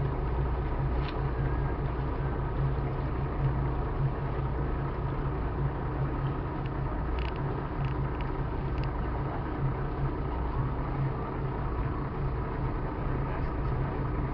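Boat engine running steadily, a low even hum.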